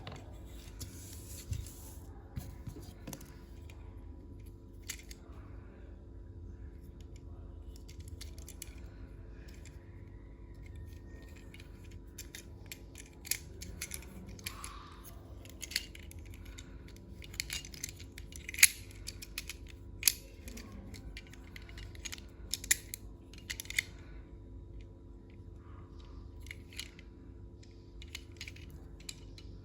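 A plastic toy and its packaging being handled and worked: scattered sharp clicks, snips and taps, busiest through the middle of the stretch, over a steady low hum.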